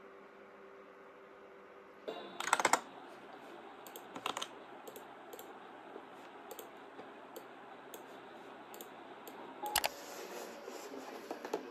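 Typing on a computer keyboard: a quick flurry of keystrokes a couple of seconds in, then slow, scattered single key presses.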